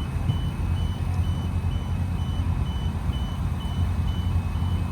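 Back-up alarm of a construction machine beeping steadily about twice a second, high and even, over the low rumble of a diesel engine running.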